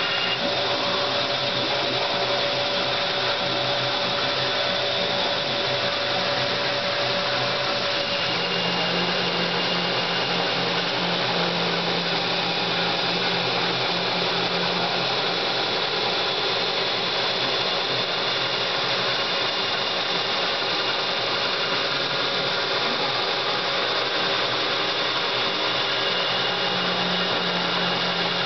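Belt grinder running with a thick 1075 carbon-steel knife blade held against the belt, grinding the bevels before heat treatment: a steady grinding noise. The pitch of the machine's hum changes slightly about eight seconds in.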